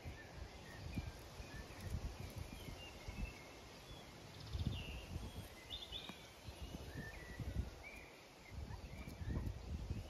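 Faint, scattered bird chirps over a low, uneven rumble of outdoor background noise.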